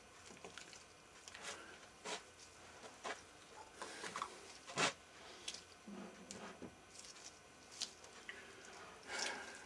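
Scattered light clicks and knocks of steel gears and shafts being handled and settled into a BSA three-speed motorcycle gearbox casing, with a sharper click about five seconds in.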